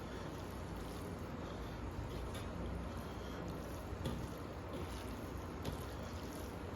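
Eating sounds: chewing and soft wet squishes of rice mixed with daal, with a few small clicks, over a steady low hum.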